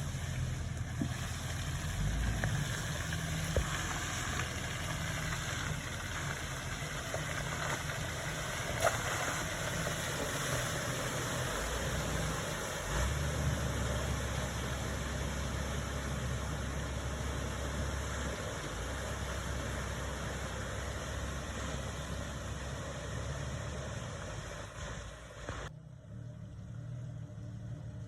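Jeep TJ engine running steadily at low revs, with a single sharp knock about nine seconds in. The higher sounds cut away suddenly near the end.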